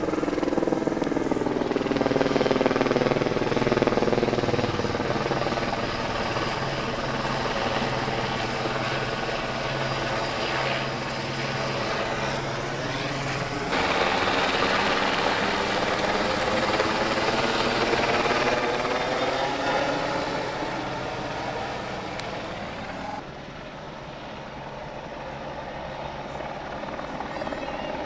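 Helicopter flying low overhead, its rotor chop and engine filling the air, the pitch slowly shifting as it passes. The sound jumps louder about 14 seconds in and drops suddenly about 23 seconds in.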